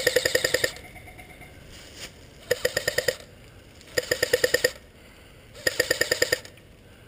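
Airsoft electric rifle firing on full auto in short bursts of rapid mechanical clicks, about a dozen shots a second. One burst is running at the start and stops about half a second in. Three more bursts follow, each under a second long, spaced about a second and a half apart.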